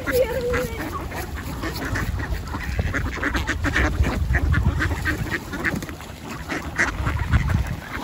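A large flock of ducks quacking, many short calls overlapping, as the birds crowd in for thrown bread.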